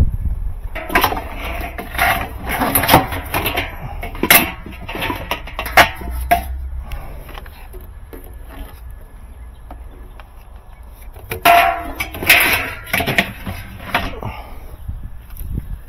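Rubber drain hoses and plastic washer parts being handled and set down, in two spells of knocks and rattles about a second in and again near the end, over a low rumble.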